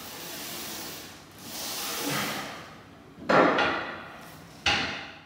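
A set of reps on a gym machine: three sudden noisy bursts about one and a half seconds apart, each fading away over about half a second, the first one softer.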